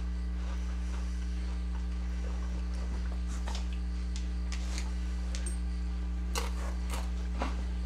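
Steady electrical mains hum, with light rustles of chips being picked off a paper towel a few seconds in and a few crisp crunches of a tortilla chip being bitten and chewed near the end.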